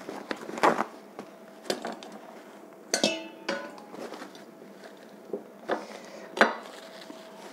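Stainless steel bowl and china plate knocking and clinking on a wooden table as they are handled, a few separate strikes; the one about three seconds in rings briefly like struck metal.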